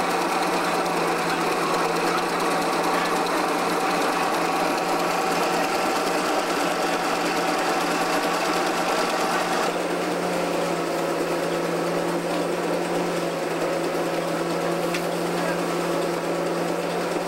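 Steady mechanical hum of an old belt-driven threshing machine running. Its tone shifts lower about ten seconds in.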